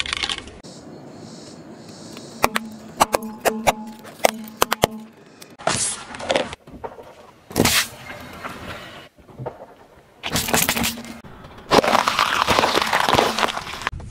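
A car tyre rolling over and crushing small objects on asphalt, in several separate takes: a run of sharp cracks and pops, then crunching, squelching bursts, the longest and loudest near the end.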